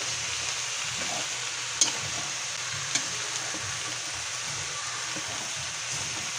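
Chopped lechon (roast pork) sizzling in a wok as it is stir-fried, a steady frying hiss. The stirring utensil knocks sharply against the wok twice, about two and three seconds in.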